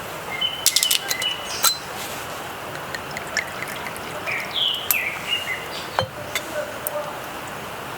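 Light clinks of glass or tableware with short ringing tones, a cluster in the first two seconds and another near the six-second mark. A few short falling chirp-like sounds come in the middle, over a steady outdoor hiss.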